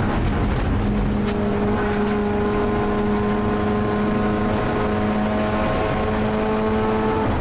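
Mazda RX-8's twin-rotor rotary engine running at racing revs, heard from inside the race car's cabin. The note blurs briefly near the start, then holds a steady pitch.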